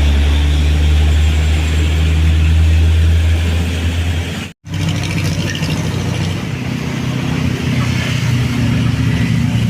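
Heavy truck diesel engine running steadily with a deep, low drone. About halfway through the sound cuts out for a moment, then comes back as a truck engine at a higher steady pitch.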